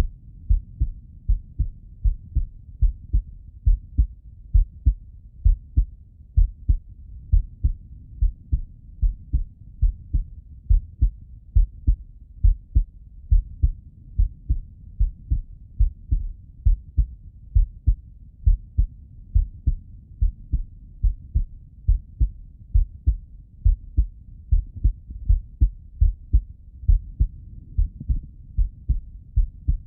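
A man's heartbeat heard through the bell of a Littmann stethoscope: a steady rhythm of paired lub-dub thuds, low and dull.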